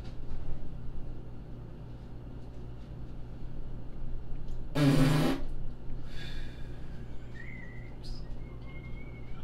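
Steady low hum, with one short, loud burst of noise about halfway through, lasting about half a second and with a buzzing low part. A faint thin whistle-like tone wavers near the end.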